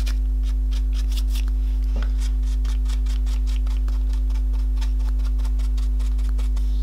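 Paintbrush dry-brushing powdered pigment onto a stiff, textured fabric-hardened plaque: quick, irregular scratchy strokes of the bristles against the wrinkled surface, several a second. A steady low hum runs under it and is the loudest thing heard.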